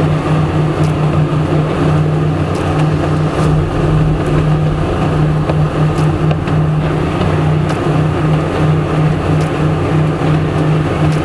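Outboard motor on a boat running steadily: an even, unbroken drone.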